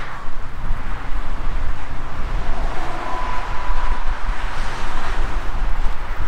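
Wind buffeting the microphone of a camera carried on a moving bicycle, over the steady rush of motorway traffic passing below.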